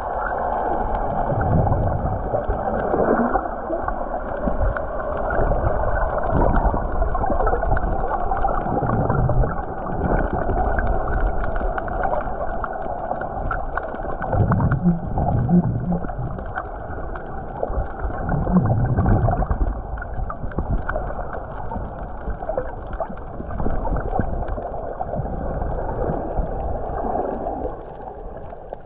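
Muffled underwater rushing and gurgling picked up through an underwater camera, with low bubbling rumbles swelling every few seconds.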